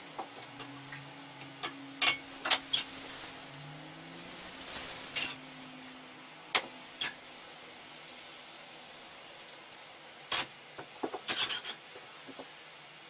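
Spoon clicking and knocking against a mixing bowl while stirring pancake batter, with a swell of sizzling about four to five seconds in as thin batter is poured into a hot frying pan. More sharp taps of the spoon on the bowl follow near the end.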